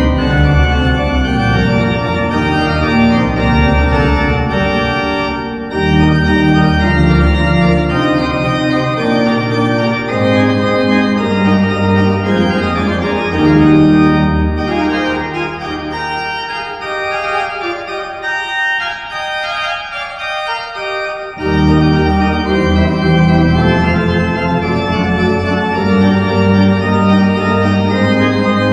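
Church pipe organ playing, full and sustained with a deep pedal bass. The bass drops out for a few seconds past the middle, leaving only the upper parts, then comes back in.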